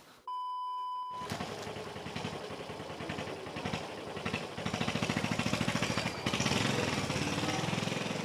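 A brief electronic beep, then a small motorcycle engine running, growing louder about four and a half seconds in and again a little after six seconds.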